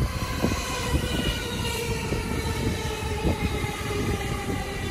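Keiyo Line E233-5000 series electric train pulling into the platform and passing close by, a steady whine slowly falling in pitch over the rumble of its wheels. Now and then a short click of the wheels crossing rail joints.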